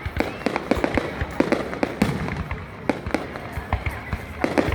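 Fireworks going off: a rapid, irregular string of sharp bangs and crackles, several a second, without a break.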